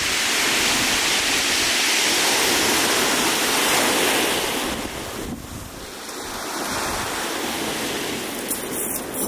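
Surf breaking on a shingle beach: a wave's wash swells and fades about five seconds in, then the next builds, with wind buffeting the microphone.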